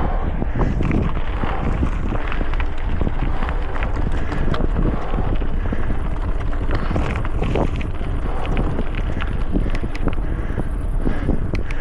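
A mountain bike riding over rough ground: the tyres rumble and the bike rattles and clicks continuously, with wind buffeting the action camera's microphone.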